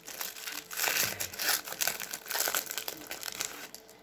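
Foil wrapper of an O-Pee-Chee Platinum hockey card pack crinkling as the pack is opened and handled: a dense crackle that thins out near the end.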